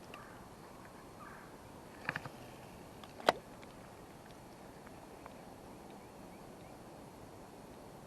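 Steady outdoor wind noise with a couple of faint clicks about two seconds in and one sharp click a little after three seconds.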